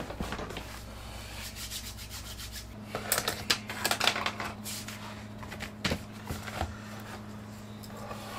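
Paper rustling and rubbing as the pages of a composition notebook are handled and turned, loudest in a dense flurry a few seconds in, followed by two or three sharp ticks, over a steady low hum.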